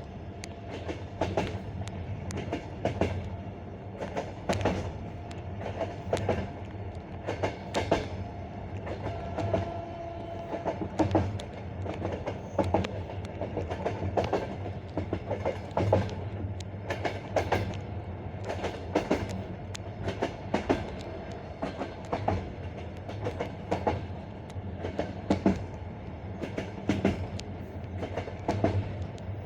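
Passenger train wheels clattering over the rail joints of jointed (non-welded) track: the classic clickety-clack, sets of sharp knocks every second or two over a steady low rumble of the moving carriage.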